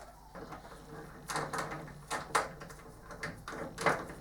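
A series of short clicks and knocks as tool-chest parts and bolts are handled, the sharpest about halfway and near the end, over a low steady hum.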